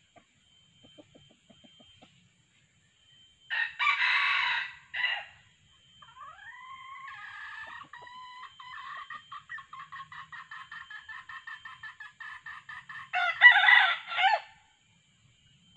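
Red junglefowl rooster crowing twice, each crow short and clipped, the second the louder. Between the crows comes a quieter, long run of quick clucking notes, rising at first and then steady: the hen call used to lure a wild cock.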